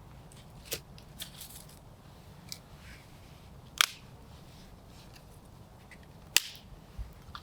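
Wood campfire crackling: a few scattered sharp pops and snaps from the burning wood, two of them much louder, about halfway and near the end.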